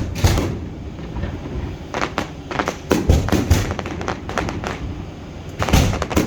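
Aerial fireworks shells bursting: a run of sharp bangs and booms, with a cluster about two seconds in and a heavier pair of bangs near the end.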